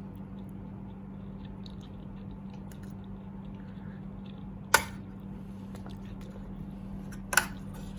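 Tableware knocking at a meal: two short sharp knocks about five and seven and a half seconds in, with faint small clicks, over a steady low hum.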